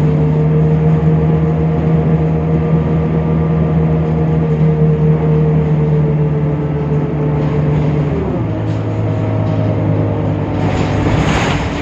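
Temsa Avenue LF city bus's DAF PR 228 diesel engine running steadily with a strong hum; about eight seconds in its note drops quickly to a lower steady pitch. A couple of short rushing noises come near the end.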